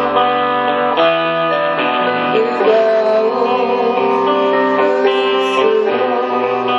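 Keyboard played live: sustained chords and melody notes that change every half second to a second.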